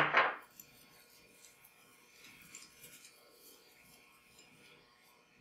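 A short, loud knock right at the start, then faint rubbing and handling sounds as a flathead screw is backed out of a plastic brush head by hand.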